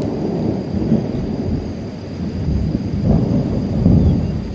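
Thunder rumbling low and rolling, swelling about three seconds in and again near the end.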